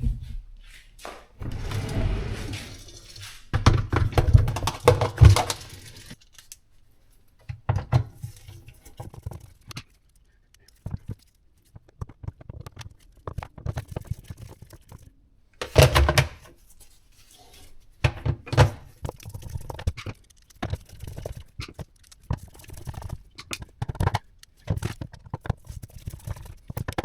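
Irregular thunks, knocks and scrapes of dishwasher parts being handled and fitted, with a longer scraping stretch early on and a loud knock around the middle: the filter pieces going back into the dishwasher basin.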